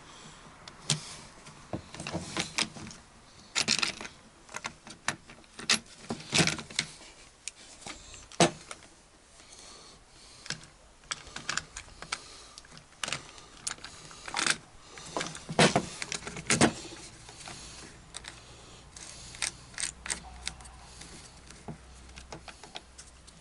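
Irregular clicks, knocks and light metallic rattling as a chainsaw attachment for an angle grinder (bar, saw chain and plastic housing) is handled and fitted onto the grinder, with several louder knocks scattered through.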